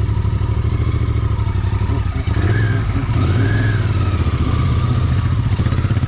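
Royal Enfield Continental GT 650's parallel-twin engine running at low revs as the bike rolls slowly over grass, a steady rumble. A few brief rising and falling tones come in around the middle.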